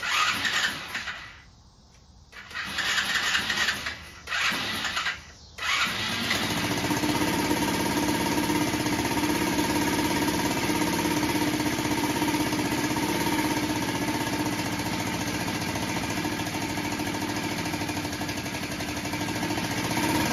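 Small Chinese kids' ATV engine being cranked in three short bursts, catching about six seconds in and settling into a steady idle. This is its first start on a newly installed replacement carburetor.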